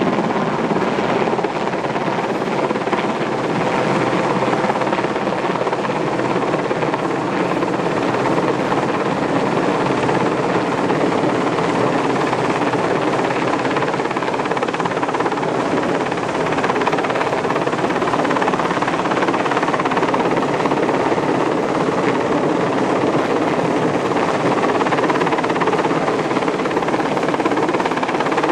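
Royal Navy Sea King search-and-rescue helicopter hovering low and close, its rotor and turbine engines giving a loud, steady noise that grows a little louder in the second half as it moves in overhead.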